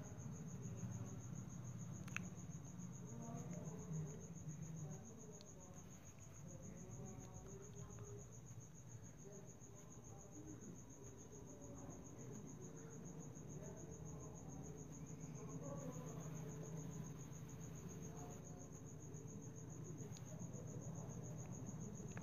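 Steady high-pitched insect trill, pulsing evenly without a break, with a single faint click about two seconds in.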